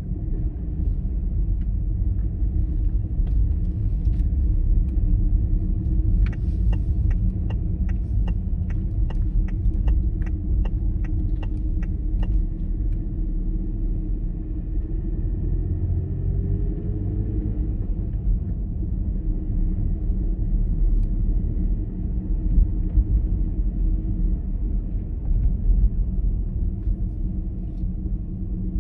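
Steady low rumble of a car's engine and tyres heard from inside the cabin. For about six seconds in the middle, a turn-signal indicator ticks evenly, about twice a second.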